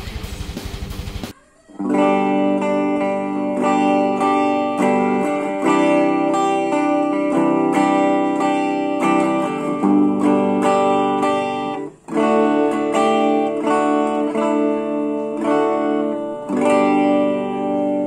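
Electric guitar played clean through a Blackstar Fly 3 mini amplifier, ringing chords and single notes. A different pulsing sound cuts off about a second in, and the playing stops briefly around twelve seconds in.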